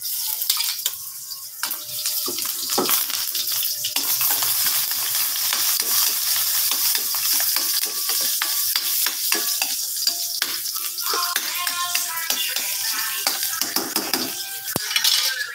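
Small chopped pieces sizzling in hot oil in a steel wok, with a metal spatula clicking and scraping against the pan as they are stirred. The sizzle starts suddenly at the beginning and stays steady.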